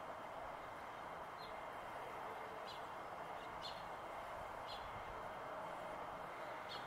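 A few short, high bird chirps, about five spread a second or so apart, over a faint steady background hiss.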